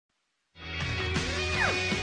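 Silence for about half a second, then a TV show's instrumental intro theme music starts, with falling sliding notes over steady held tones.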